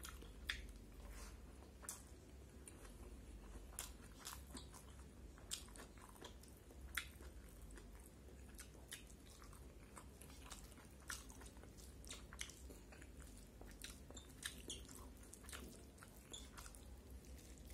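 Close-up chewing of a person eating rice, pork and bamboo shoots by hand: quiet, irregular wet mouth clicks and smacks at an uneven pace.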